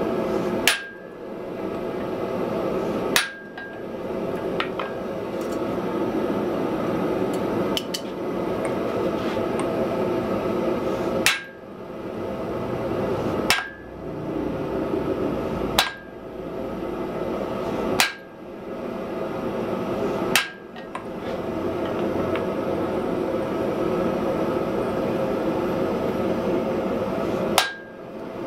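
A hand hammer striking a handled top tool held on a glowing iron block on the anvil: eight heavy single blows, mostly about two seconds apart, each with a short metallic ring, plus two lighter knocks early on and a long pause before the last blow near the end. A steady noise runs underneath.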